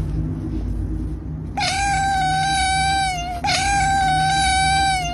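Tabby kitten giving two long, drawn-out meows, each held at a steady pitch, the second sliding down at the end, over a steady low rumble.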